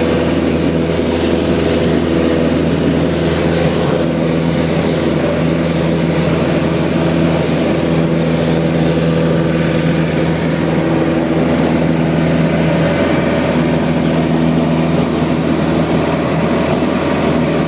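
Beechcraft light aircraft's engine and propeller droning steadily, heard from inside the cabin.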